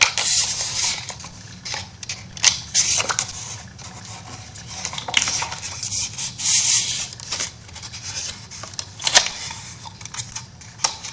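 Scissors cutting scrapbook paper, in a series of irregular short snips and rasps, with paper being handled.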